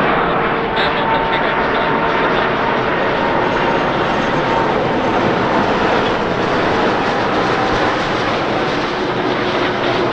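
Airbus A330-300 jet airliner's engines, a loud steady rushing noise with a faint whine in it.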